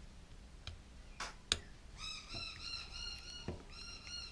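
Faint small clicks and taps from handling the camera's small parts with a screwdriver, about five scattered through. About halfway in a steady high-pitched whine with overtones sets in and keeps going, breaking off briefly a few times.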